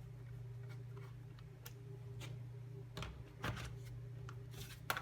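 Scattered light clicks and taps of laptop parts being handled, a few at a time and closer together near the end, over a steady low hum.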